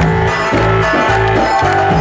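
Loud dance music with a steady beat, about two pulses a second, under held, stacked melody notes.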